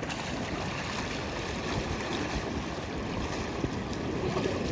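Steady outdoor wind rumbling on the microphone over the wash of water.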